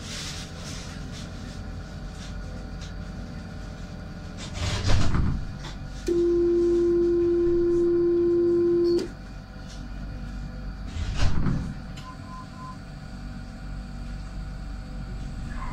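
Citadis 302 tram standing at a stop: a steady door-closing warning tone sounds for about three seconds, with a short, louder rush of noise shortly before it and another about two seconds after it, then three short faint beeps.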